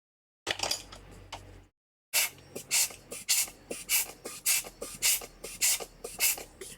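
Rhythmic scratchy strokes, about two a second: a hand tool or brush worked against a small surface. A shorter stretch of the same kind of sound comes first, then a brief pause before the strokes.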